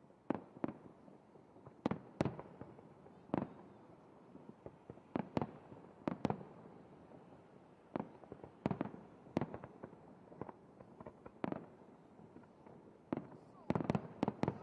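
Aerial firework shells bursting in an irregular series of sharp bangs, a couple of dozen in all, with a quick flurry of them near the end.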